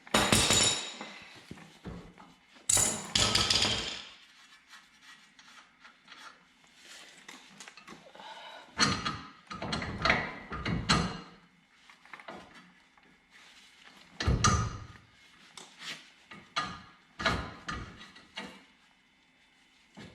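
Irregular loud metal knocks and clanks from tool work on a pickup's front suspension, about eight in all, some ringing on briefly, with pauses between.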